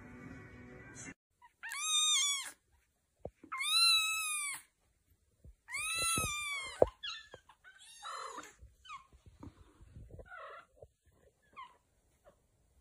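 A young kitten meowing: three loud, high-pitched cries, each rising and falling, about two seconds apart, then quieter, shorter cries. Before the cries, about a second of background music.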